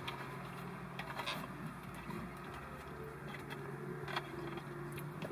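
Low steady hum of a car idling, heard from inside the cabin, with a few faint clicks from eating.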